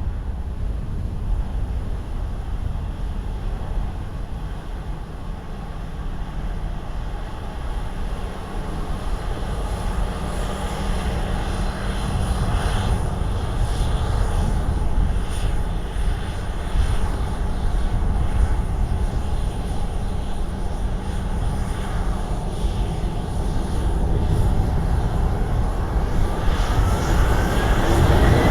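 An airliner's jet engines growing steadily louder as the plane approaches, with a whine rising in pitch near the end. Strong wind buffets the microphone throughout.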